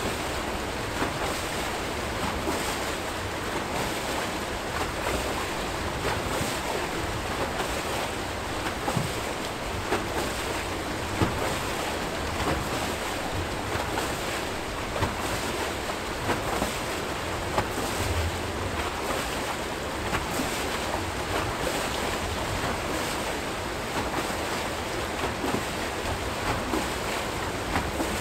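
Water rushing and churning out of the foot of a turning Archimedes screw hydro turbine: a steady rush with frequent small splashes.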